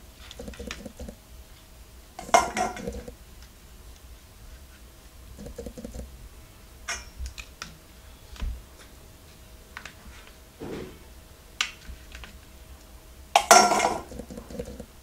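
Stainless-steel tray and steel plate handled as cut pieces of sweet are lifted out and set down: scattered light clinks and scrapes of steel, with a louder clatter about two seconds in and the loudest one near the end.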